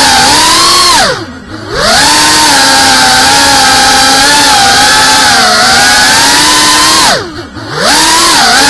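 FPV quadcopter's brushless motors and propellers whining at high speed. The whine drops in pitch and level twice, about a second in and near the end, as the throttle comes off, then climbs back up.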